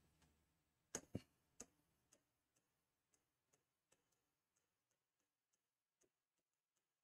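Faint chalk taps on a chalkboard while a word is written out. Three sharper knocks come about a second in, then light ticks follow, two or three a second.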